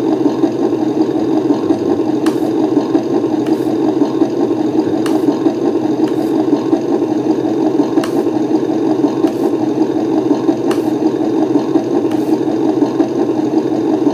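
Add-on sound module of a 1/12 Kyosho DF300 RC snow vehicle playing a simulated engine idle through its small speaker, steady and even, with a few faint clicks scattered through it.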